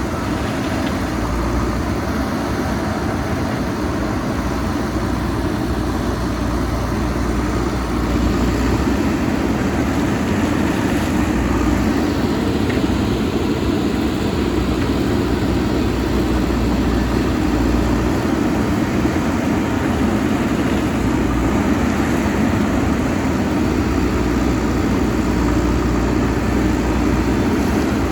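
Diesel engine of a JCB backhoe loader running steadily under work, getting a little louder about a third of the way in.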